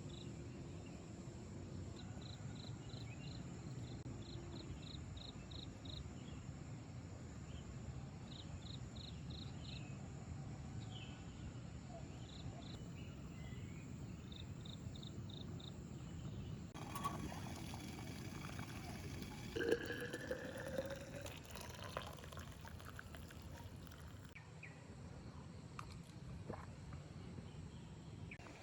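Crickets chirping in short, rapid trains of pulses over a low steady background. About two-thirds of the way through, liquid pours for a few seconds, its pitch rising briefly as it goes.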